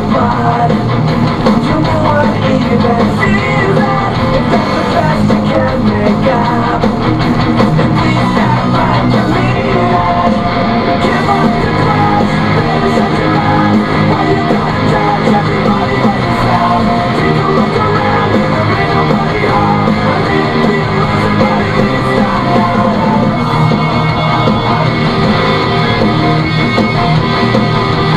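Rock music with shouted singing and guitars, playing on a car radio.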